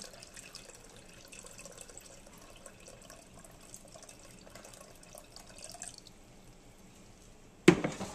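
Hot cooking liquid pouring in a thin stream from a slow-cooker pot into a metal saucepan: a faint trickling that stops about six seconds in. Near the end comes a single loud clunk as the cooker pot is set back into its base.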